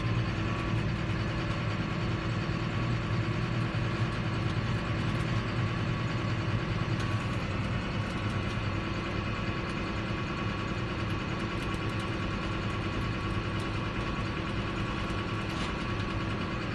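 John Deere 7530 tractor's six-cylinder diesel engine running steadily as the tractor drives slowly, heard from inside the cab.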